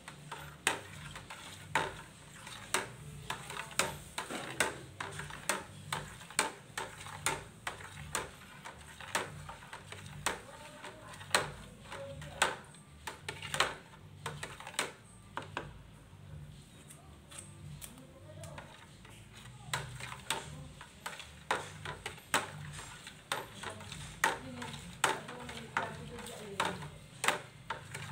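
A utensil stirring water in a plastic bucket, clicking against the bucket about once a second, over a steady low hum.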